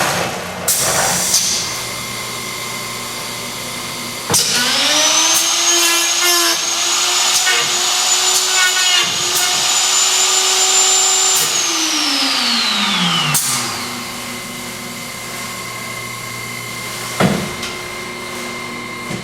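Norfield E Series Magnum door machine running its lock-boring and faceplate-routing cycle over a steady machine hum. About four seconds in, a high-speed cutter motor spins up with a rising whine, runs steadily for about seven seconds, then winds down. A few sharp knocks come near the start and near the end.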